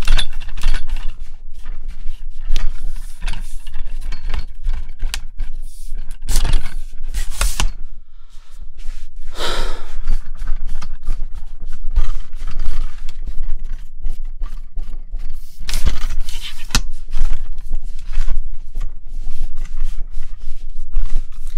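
Handling noise from a Neewer NW-088 aluminum boom pole, picked up by the microphone on its end: a run of clicks, knocks and scraping as hands grip and twist the pole sections, over a low rumble. The plastic collars and cheap aluminum carry the noise straight down the pole to the mic, the sign of a poorly isolating boom.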